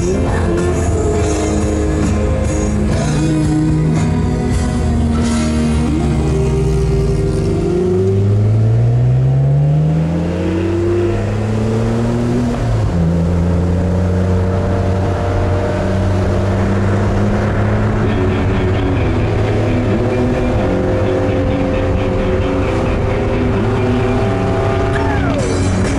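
Car engine heard from inside the cabin under acceleration: its note climbs steadily for several seconds from about seven seconds in, then drops sharply at a gear change near the middle. Music plays throughout.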